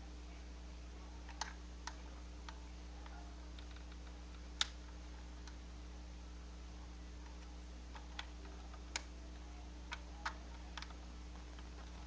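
Scattered light clicks and taps, about a dozen at uneven intervals, as a small sewing machine is handled, over a steady low hum.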